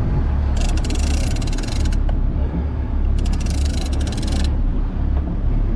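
Two bursts of rapid clicking from a big-game fishing reel, each a little over a second long, during the fight with a large bluefin tuna, over a steady low rumble.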